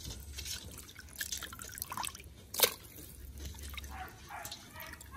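Water splashing and sloshing in a basin as a hand scrubs and turns over pieces of goat skin, foot and tripe, washing them, with irregular splashes and one sharper splash about two and a half seconds in.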